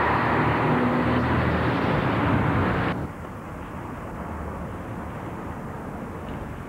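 Steady outdoor background noise on a camcorder microphone, cut off abruptly about three seconds in by an edit, then quieter outdoor background noise.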